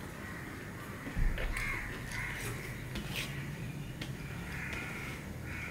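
Fingers mixing rice and curry on a steel plate, with small clicks against the metal, and a dull thump about a second in. A crow caws several times in the background.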